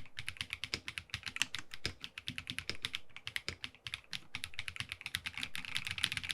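Typing on an EPOMAKER Aura75 mechanical keyboard fitted with factory-lubed EPOMAKER Wisteria linear switches and PBT keycaps: a quick, continuous run of keystrokes that gets faster and denser toward the end.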